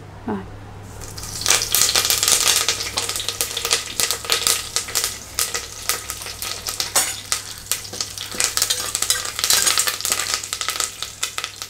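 Curry leaves spluttering and crackling in hot coconut oil in a stainless steel pressure cooker, a dense sizzle of small pops starting about a second in. Near the end a metal spoon stirs them.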